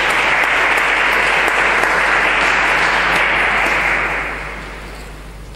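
Audience applauding, the applause dying away about four seconds in.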